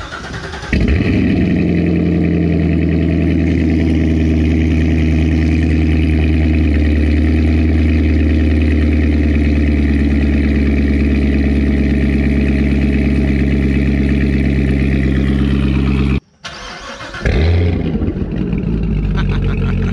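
Cold start of a C7 Corvette V8 through an AWE Touring Edition axle-back and X-pipe exhaust. The engine catches about a second in and settles into a loud, steady idle. After about sixteen seconds it cuts off abruptly, and a second later an engine is running again.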